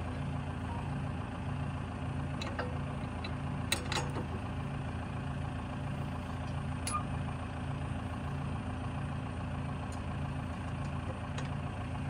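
Tractor diesel engine idling steadily with a regular pulsing hum about one and a half times a second. A few sharp clicks come from hand work on the mower's cutter bar, about four seconds in and again near seven seconds.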